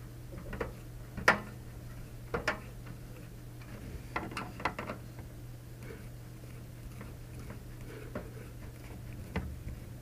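Screwdriver driving small screws through a case fan's frame into a PC case: a few sharp clicks, two clearer ones in the first few seconds, with lighter ticks of metal on the plastic and sheet metal in between.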